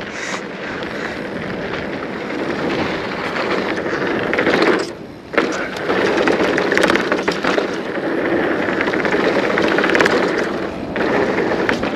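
Hardtail mountain bike riding down a rough, bumpy dirt trail: steady noise of tyres on dirt and rock, full of small rattling clicks and knocks from the unsuspended frame and drivetrain. About five seconds in the noise drops away for a moment, then comes back with a sharp knock.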